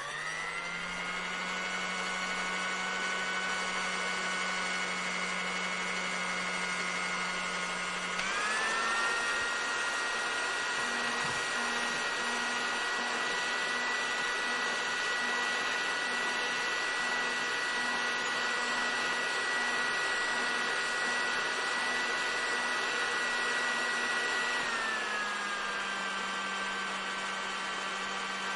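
Hair dryer running steadily: a strong rush of air over a motor whine, spinning up at the very start. Its pitch shifts about eight seconds in and shifts back near the end.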